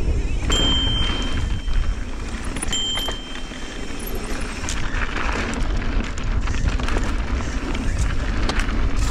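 Mountain bike descending loose dirt singletrack: wind buffeting the action-camera microphone and the tyres rolling over dirt make a steady rumbling noise. Two short high-pitched squeals come about half a second in and just under three seconds in.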